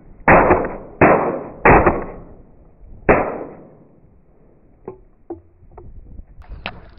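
Shotgun shots at flying ducks: four blasts, the first three in quick succession about two-thirds of a second apart and the fourth about a second and a half later, each trailing off in an echo over the water. A few faint clicks follow near the end.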